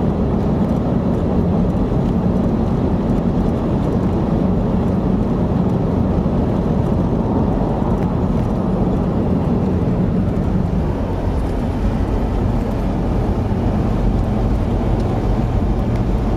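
A 4x4 off-road vehicle driving, its engine and running noise steady and loud, with the engine note dropping slightly about eleven seconds in.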